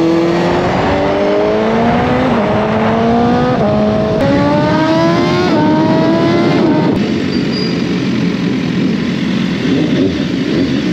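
BMW S1000RR inline-four sport bike accelerating hard through the gears, its engine note climbing and dropping back at each of several upshifts. After about seven seconds the engine note falls away under steady wind and road noise as the bike rolls off.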